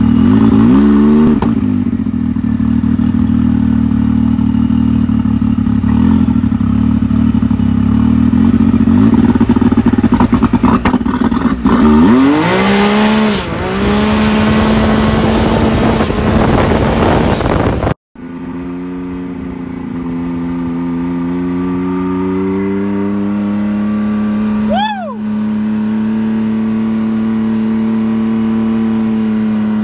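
The turbocharged three-cylinder engine of a 2018 Can-Am Maverick X3 with a compound turbo kit on E85, heard from the cab: it idles and is revved, then a hard launch at full throttle with the revs climbing through the gears. About 18 s in the sound cuts out abruptly and comes back as the engine running steadily while the machine slows, with a brief rising-and-falling whistle about 25 s in.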